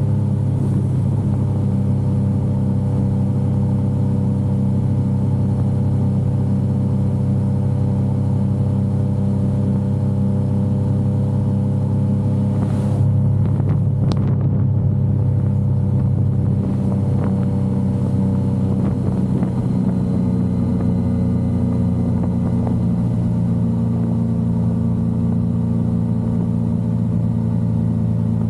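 Yamaha XSR900's inline three-cylinder engine running steadily while the motorcycle is ridden. The sound is briefly disturbed about halfway through, and the pitch rises slowly in the later part.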